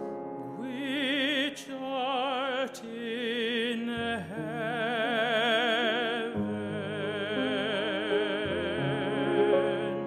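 A man singing a slow solo in a classical, operatic style with strong vibrato on long held notes, over piano accompaniment; the voice comes in about half a second in.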